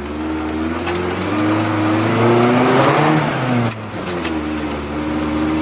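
Pickup truck engine revving under load off-road, its pitch climbing for about three seconds and then falling, with a brief break before it settles at steady revs.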